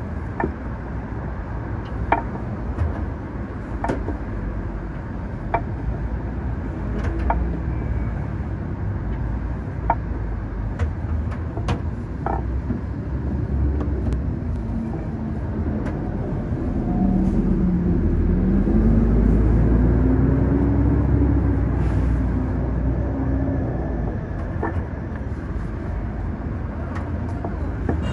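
Street traffic ambience: a steady low rumble with light clicks every couple of seconds. Past the middle, a heavy vehicle's engine grows louder, its pitch dipping and then rising, before it fades back into the background.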